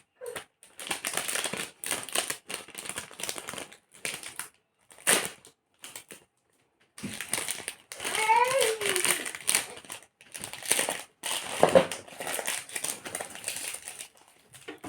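Packaging crinkling and rustling in irregular bursts as it is handled and unwrapped, with a pause about six seconds in.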